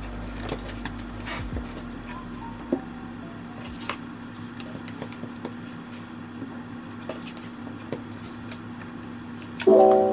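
Rubber stamp being inked on an ink pad and pressed onto kraft paper envelopes: scattered light taps and knocks with paper handling over a steady low hum. Background music comes in near the end.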